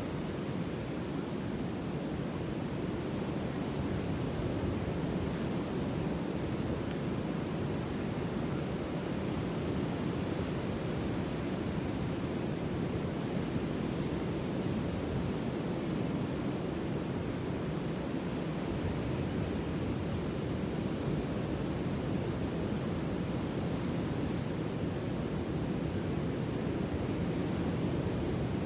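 Ocean surf as a continuous, even rush with no separate wave crashes standing out.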